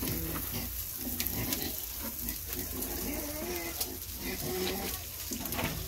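Meat frying in a pan over a wood fire, a steady sizzle, with short low grunts from a pig coming and going over it.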